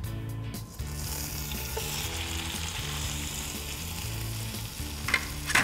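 Bone-in pork chop sizzling as it hits hot butter and oil in a frying pan and starts to sear; the sizzle starts about a second in and holds steady. A couple of sharp clicks come near the end.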